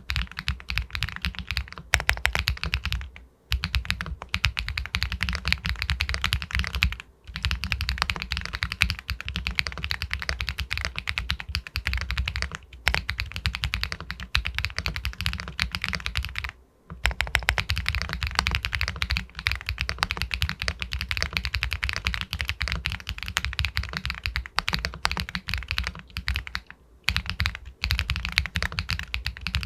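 Continuous fast typing on an Epomaker Galaxy 80 Pro full-aluminium mechanical keyboard with White Jade linear switches: a dense stream of key clacks, broken by a few brief pauses.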